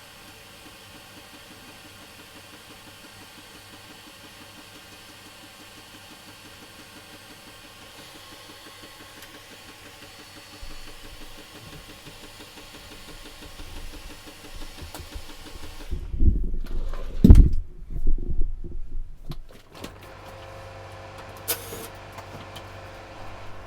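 Small motor in a hazer machine, its fan or fluid pump running with a steady, fast-pulsing hum; this is a hazer that is not putting out haze. About two-thirds of the way through come several loud low knocks and thumps, then the hum carries on more quietly.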